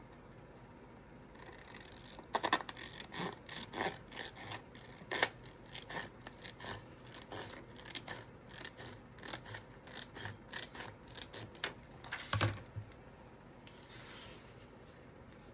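Scissors snipping through a sheet of translucent patterned paper: a run of short, sharp cuts at an irregular one or two a second, beginning a couple of seconds in and stopping near the end. This is trimming the sheet to size. A faint paper rustle follows as the sheet is laid down.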